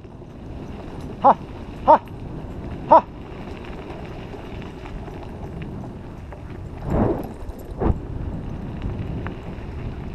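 Dog scooter rolling fast over a dirt trail behind a running two-dog team: a steady rumble of wheels on dirt with wind on the microphone. Three short, high chirps come between about one and three seconds in, and two louder rough jolts come near the end.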